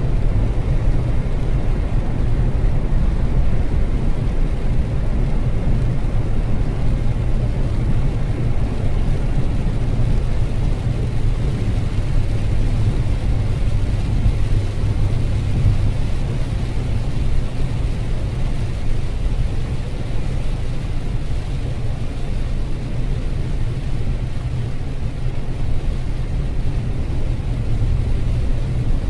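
Steady car noise heard from inside the cabin while driving at speed on a rain-soaked highway: a low rumble of engine and tyres, with the hiss of tyres on wet asphalt and rain on the car.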